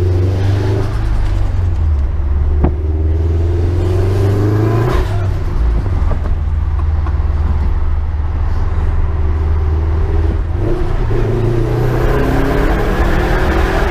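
Turbocharged Subaru Impreza flat-four engine under boost, pulling up in revs twice and lifting off between pulls, with the turbo flutter (compressor chatter) that comes from its newly fitted front-mount intercooler.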